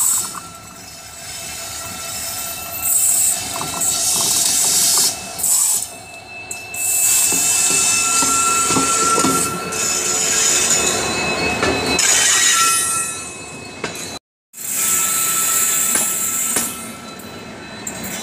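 WDP-4D diesel-electric locomotive passing slowly at close range with its EMD two-stroke V16 running, followed by passenger coaches rolling by. Wheels squeal and screech on the rails in repeated spells, with some clickety-clack over the rail joints, as the train crawls through the loop line. The sound cuts out briefly about fourteen seconds in.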